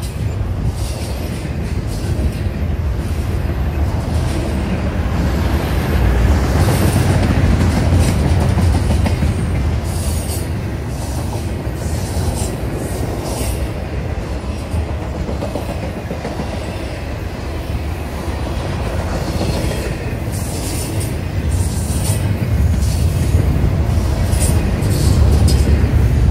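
Double-stack intermodal freight train of container-laden well cars rolling past: a steady rumble of steel wheels on rail, with brief high-pitched wheel squeals here and there. It swells louder about six seconds in and again near the end.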